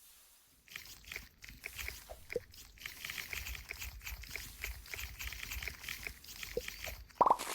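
A soft foam squishy toy being squeezed and kneaded close to the microphone, giving a run of small irregular crackles and crunches with faint squeaks, and a short plop near the end.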